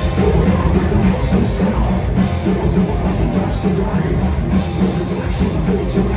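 Live rock band playing loud: electric guitar, bass guitar and drum kit, with the whole band coming in together at the start and cymbal crashes every couple of seconds.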